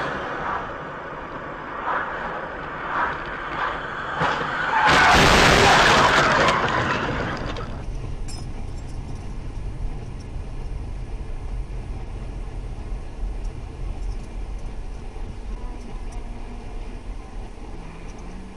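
A loud burst of noise about five seconds in, lasting two to three seconds and then fading. After it, a car's engine and tyre noise runs as a steady low rumble inside the cabin.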